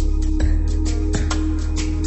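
Instrumental background music with a steady beat over held bass notes.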